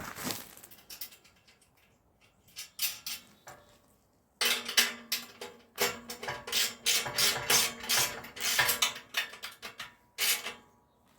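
Hand ratchet clicking as hardware is tightened down: a few scattered clicks and rubs at first, then from about four seconds in a long run of quick ratcheting strokes. The strokes stop shortly before the end.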